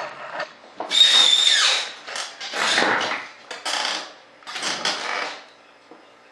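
Chisel scraping along the edge of a composite mold in about four strokes, each lasting up to a second; the first stroke, about a second in, gives a brief high squeal.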